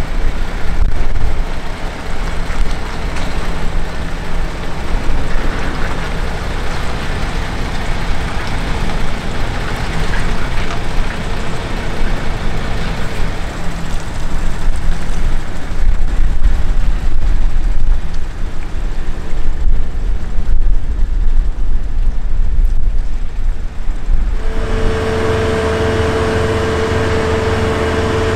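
Heavy diesel engine running with a low rumble. About 24 seconds in, the sound changes abruptly to a steadier engine drone with a steady humming tone above it.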